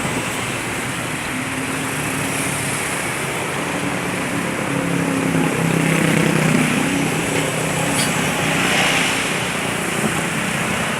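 Vehicle engines running in road traffic: a steady rush of road noise with a low engine hum that grows louder in the middle and then eases off.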